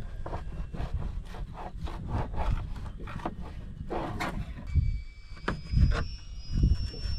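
A blunt knife sawing back and forth through food on a wooden cutting board: a quick run of scraping strokes, about three a second. In the second half come a few low knocks and a faint steady whine.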